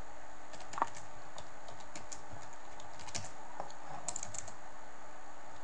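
Typing on a computer keyboard: irregular key clicks over a steady background hiss.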